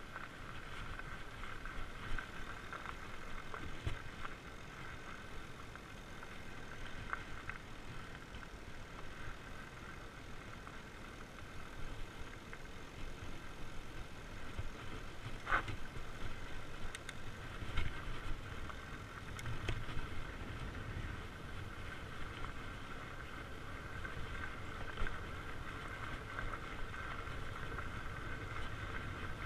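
Fat bike rolling along a dirt trail: the tyres run over the ground with a steady whirring hum and some rumble, and the bike rattles over bumps with a few sharp knocks, the loudest about halfway through.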